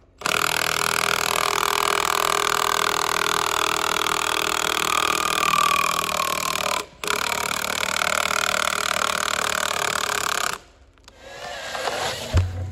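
A chainsaw running at full throttle, cutting into the base of a large tree trunk, steady apart from a brief break about seven seconds in. It stops about ten and a half seconds in.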